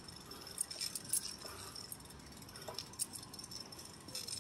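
A person walking, with faint scattered clicks and light jingling from things being jostled as he moves.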